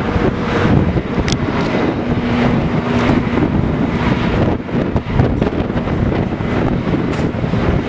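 Dust-storm wind blowing hard against the microphone: a loud, gusting rush of noise.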